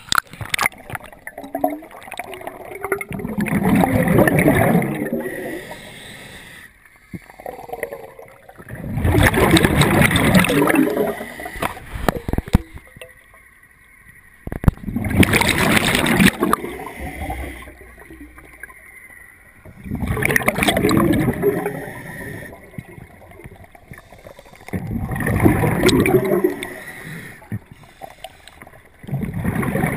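Scuba diver breathing on a regulator underwater: a gurgling rush of exhaled bubbles every five or six seconds, with quieter stretches between breaths.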